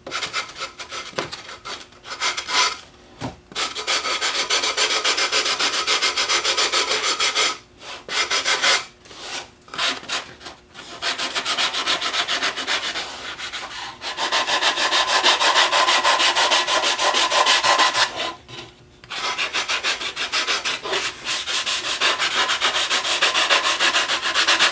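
Hand-sanding wood edges with a sanding block: quick back-and-forth rasping strokes in long runs, with a few short pauses, easing off the sharp edges.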